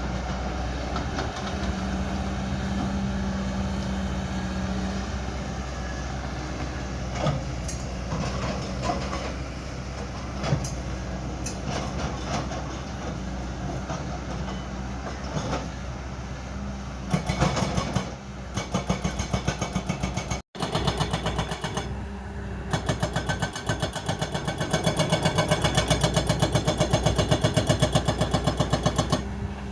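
Excavator diesel engine running steadily, with a few knocks over it. After a sudden break about two-thirds of the way through, an engine runs with a fast, even pulse.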